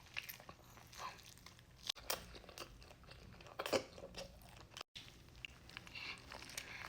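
Close-up chewing of a mouthful of chicken burrito: soft, wet bites and smacks at irregular intervals, with a couple of louder ones about two and four seconds in.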